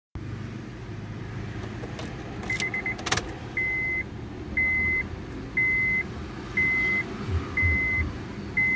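Car keys jangling and the ignition switch clicking about three seconds in, with a quick run of short beeps, then the Honda City's dashboard warning chime beeping about once a second, each beep about half a second long. The ignition is on with the engine not yet started.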